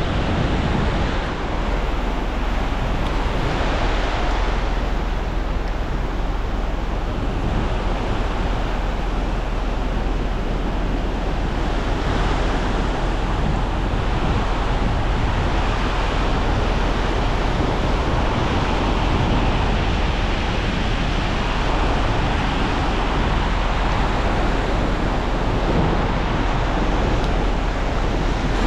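Ocean surf washing onto the beach as a steady hiss and rush, with wind rumbling on the microphone.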